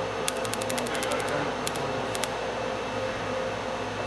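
Pulsed fiber laser welder firing on a copper-alloy part with fine filler wire: a quick run of sharp ticks, about eight a second, then a few scattered single ticks, over a steady machine hum.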